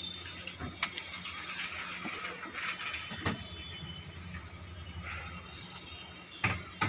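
Hands working on the car's rear seat area and fittings: scattered clicks and a few sharp knocks, two of them close together near the end, over a steady low hum.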